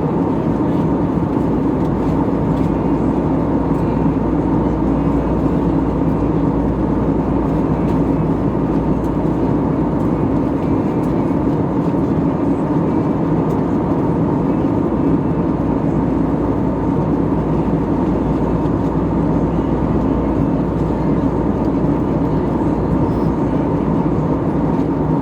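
Cabin noise inside an Airbus A320neo airliner: a steady, even drone of the engines and air rushing past the fuselage.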